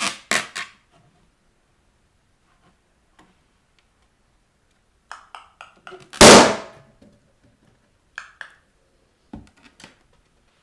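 A balloon bursting under bare feet: one loud pop about six seconds in, just after a few short clicks. Brief rubbing and crinkling of balloon rubber at the start and a few light clicks near the end.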